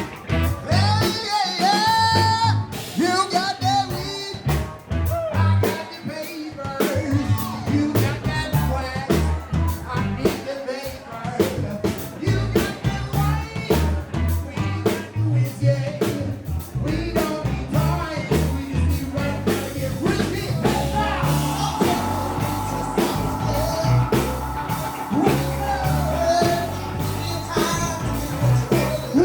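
Live funk band playing, with drum kit and a strong bass line. A held chord from the higher instruments comes in about two-thirds of the way through and carries on to the end.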